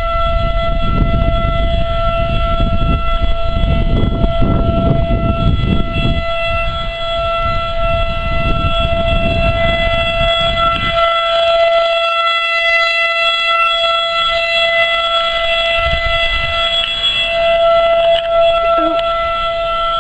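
Outdoor tornado warning siren wailing at a steady pitch. A low noise sits under it for about the first half and fades out, then comes back faintly.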